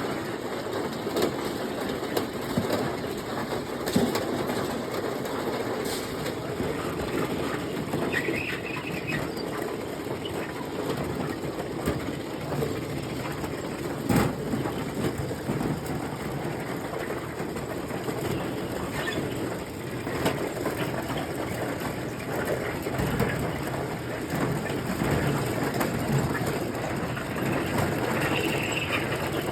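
Farm elevator running ear corn up into a corn crib: a steady mechanical rattle with scattered clicks, and a couple of sharper knocks.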